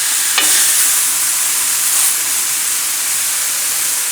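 Chicken cutlets sizzling steadily in a little olive oil in a hot pan, with a light tap about half a second in.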